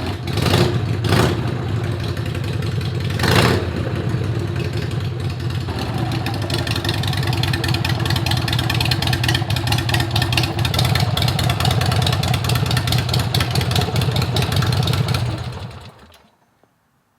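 Harley-Davidson Sportster 883's air-cooled V-twin running through shotgun exhaust pipes. It blips the throttle three times in the first few seconds, then runs steadily and fades out near the end.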